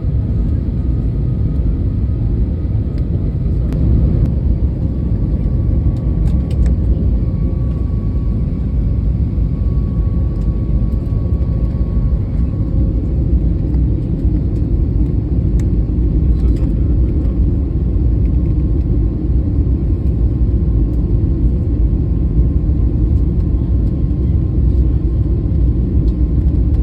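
Steady low rumble of engine and airflow noise heard inside an airliner's passenger cabin, with faint steady tones above it. It cuts off abruptly at the end.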